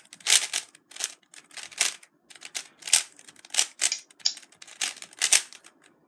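Plastic 3x3 speedcubes being turned fast in a timed solve: bursts of quick clacking layer turns, a few bursts a second with short pauses between.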